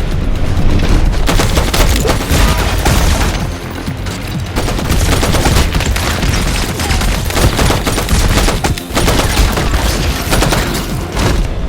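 Sound-designed film gunfire: rapid, overlapping shots from several guns at once in a sustained fusillade, with music underneath.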